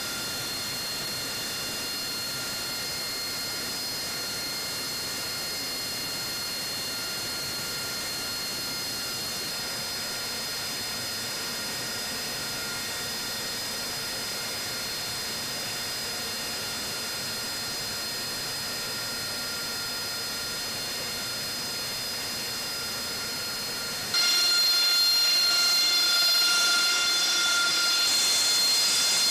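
Steady jet-engine whine over a rushing hiss, with several high steady tones held throughout. About 24 seconds in it jumps suddenly louder and brighter.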